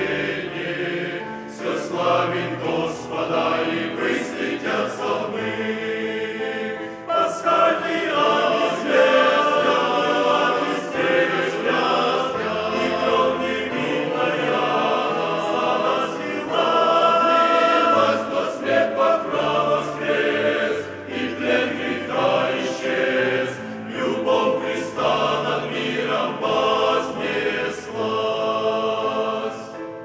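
Men's choir singing a hymn in Russian, several voice parts in harmony.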